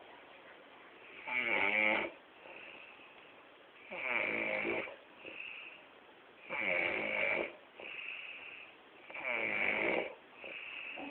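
A man snoring heavily in a drunken sleep: four loud snores about two and a half seconds apart, each followed by a softer breath.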